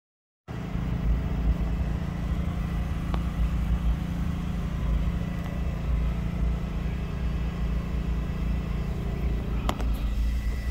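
Steady low machine hum with an uneven rumble beneath it, and a sharp click about three seconds in and another near the end.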